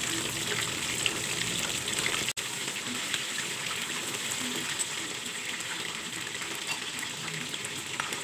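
Breaded chicken wings deep-frying in a wok of hot oil: a steady, busy sizzle with small crackles. The sound cuts out for an instant about two seconds in.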